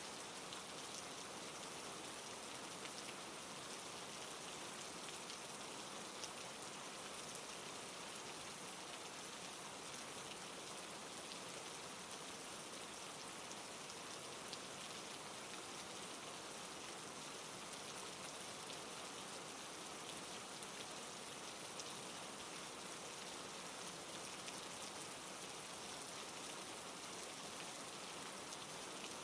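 Steady rain falling, an even hiss with faint scattered drop ticks, used as a sleep ambience track.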